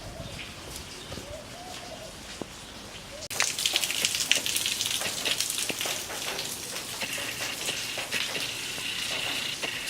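Heavy rain falling and pattering on hard surfaces, many small drop-clicks over a dense hiss. It sets in abruptly about a third of the way in; before that there is a quieter stretch with a few faint rising-and-falling tones.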